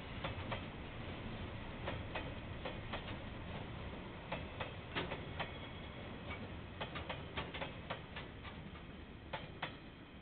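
A KiwiRail train passing, heard through a security camera's microphone: irregular sharp clicks, singly and in quick pairs, over a steady low rumble, the whole fading toward the end.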